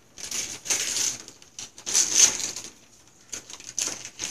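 Wrapping paper tearing and crinkling as a child unwraps a present, in three bursts of rustling.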